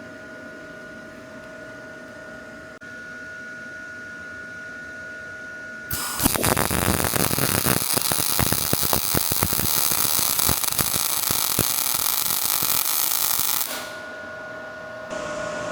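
MIG welding arc crackling and sizzling for about eight seconds, starting about six seconds in and cutting off near the end, as a bead is run with the gun dragged (pull technique). Before and after the arc there is a steady electrical hum with a held whine.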